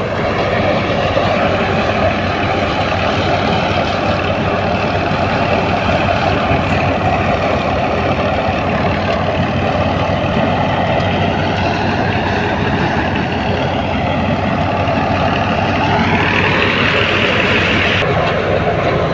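Tractor-driven wheat thresher running at speed: a steady, loud mechanical drone with a dense rushing noise over it as the threshing drum and fan work. Near the end a higher whine rises in pitch for a couple of seconds, then the sound changes abruptly.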